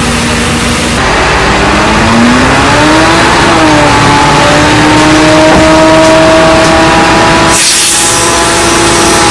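Heavy construction machine's diesel engine revving up, its pitch rising about two seconds in and then holding steady under load. A short hiss comes near the end.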